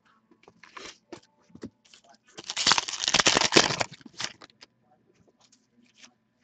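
Hockey card pack wrapper being torn open: a few scattered crinkles and clicks, then a loud dense crackling tear about two and a half seconds in that lasts over a second, followed by light rustling.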